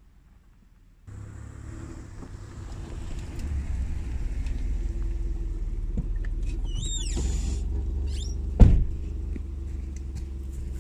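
A van's engine running with a steady low rumble as it drives away, starting suddenly about a second in. A short rising chirp near the middle and one sharp thump near the end.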